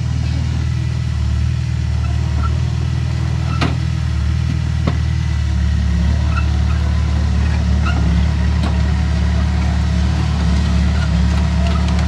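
Komatsu bulldozer's diesel engine running steadily under load, with a few sharp knocks.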